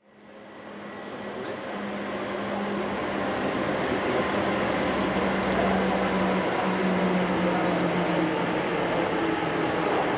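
Aerial cable car station machinery running: a steady low hum over a broad rush of mechanical noise, fading in over the first few seconds.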